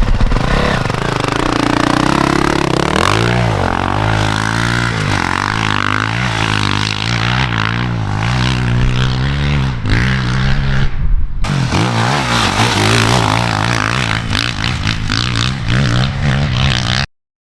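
Honda CRF450R single-cylinder four-stroke dirt bike engine revving hard, its pitch climbing and dropping again and again as the rider opens and rolls off the throttle through the gears. The sound drops out briefly about two-thirds of the way in and cuts off suddenly near the end.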